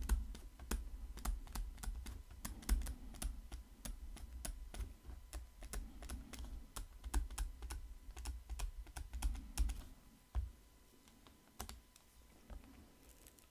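Stylus tapping and scratching on a tablet during handwriting: a fast, irregular run of light clicks with low thuds underneath. The clicks mostly stop about ten seconds in.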